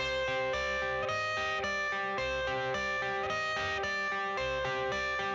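Instrumental guitar-led rock music with a steady beat, before any vocals come in.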